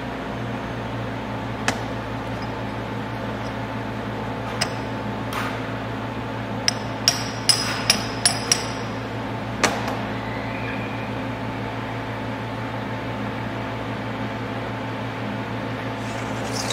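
Sharp metal-on-metal clicks as a pump diffuser is fitted and seated onto its metal end cap: a few single clicks, then a quick run of about six, over a steady background hum.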